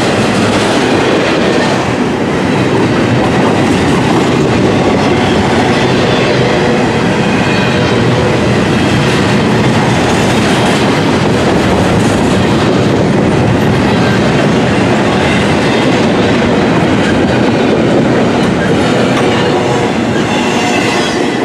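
Double-stack container well cars of a CSX intermodal freight train rolling past at close range: a loud, steady rumble of steel wheels on the rails.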